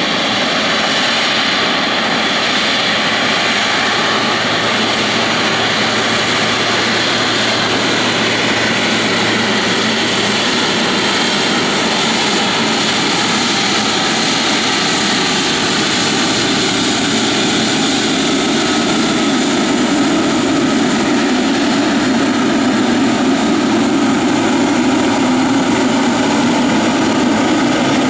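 Boeing 777-200's twin jet engines at taxi thrust as the airliner rolls past: a steady whine over a continuous rush, growing a little louder in the second half as it comes closer.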